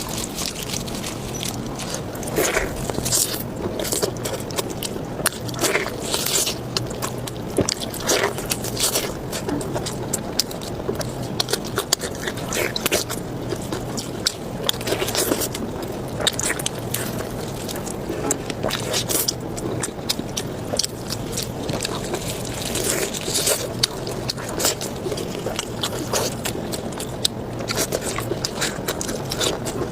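Close-miked eating of spicy pork belly: wet chewing, biting and mouth smacks, with frequent short sharp clicks at irregular intervals over a low steady hum.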